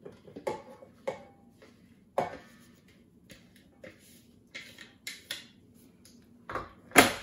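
Plastic work bowl and parts of a Bosch MCM3200W food processor being handled and taken apart, with clicks, knocks and clatter against a steel mixing bowl as the cut potato strips are emptied. The processor motor is not running. The loudest knock comes near the end.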